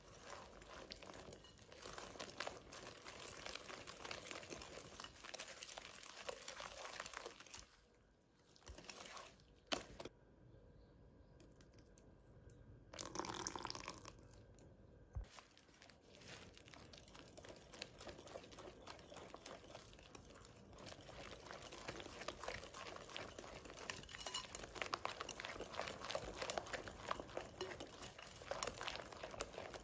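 Stainless steel wire whisk mixing thick batter in a glass bowl: a dense run of small scraping and clicking strokes, broken by a quieter pause about a third of the way in, and busier again towards the end.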